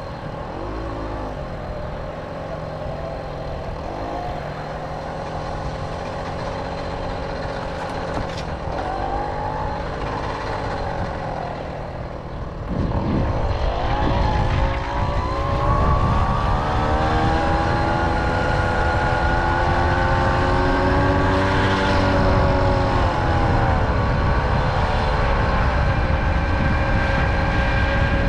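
Tomos moped's small two-stroke engine running while being ridden, with wind rumbling on the microphone. About halfway through it speeds up and then holds a higher, louder steady pitch, easing off briefly a couple of times.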